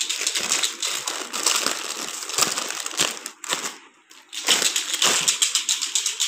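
Cellophane gift wrap and plastic snack packets crinkling and rustling as hands dig through a gift basket, with a brief lull about four seconds in.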